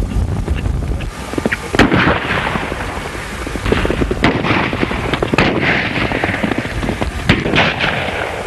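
Several gunshots a second or more apart, fired in a gunfight, heard over the crackling noise of an old film soundtrack.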